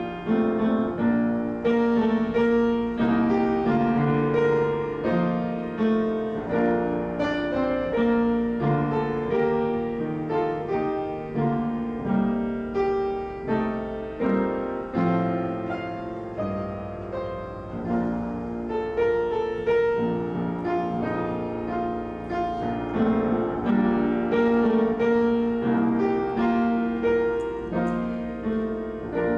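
Piano music: a steady flow of struck notes and chords, each ringing and fading.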